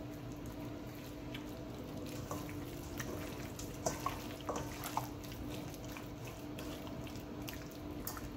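Wet squelches and small slaps of raw chicken pieces being massaged with marinade by gloved hands in a stainless steel bowl, as short irregular sounds over a faint steady hum.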